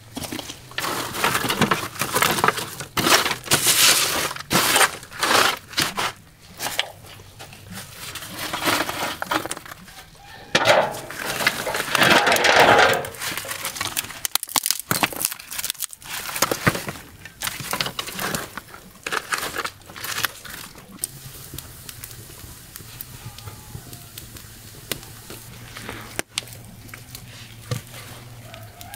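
Dry twigs and kindling being snapped, crackling and rustling as they are handled and laid on ash in a brick fire pit, loudest in the first half; later, quieter, with split firewood set down on the kindling.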